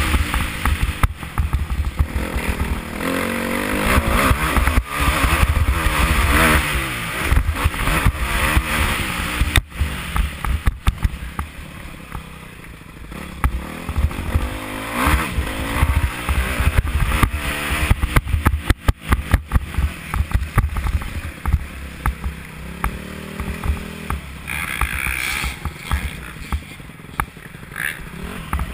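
Motocross dirt bike engine heard from the rider's helmet, revving up and dropping back again and again as he rides the track, with frequent knocks and rattles, thickest about ten seconds in and again around eighteen to twenty seconds.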